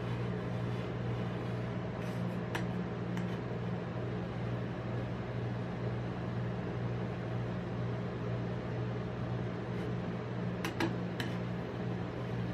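Steady low hum of an ice-cream roll machine's refrigerated cold plate, with a metal spatula scraping rolls of frozen ice cream up off the metal plate and a few short clicks of the spatula against it.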